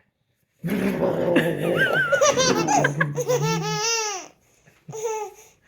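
A young child laughing hard, high and wavering, for about three and a half seconds, then a short laugh again near the end.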